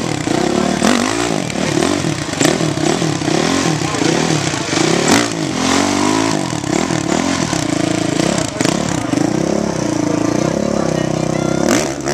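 Dirt bike engine revving hard and blipping over and over, its pitch sweeping up and down as the bike is forced up and over concrete culvert pipes. There are occasional sharp knocks.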